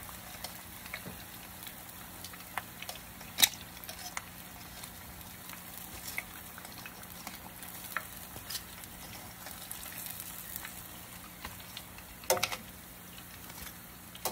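Flour-coated chicken pieces deep-frying in hot oil: a steady sizzle with scattered crackling pops. Metal tongs clack sharply against the pot twice, about three seconds in and near the end, as pieces are lifted out.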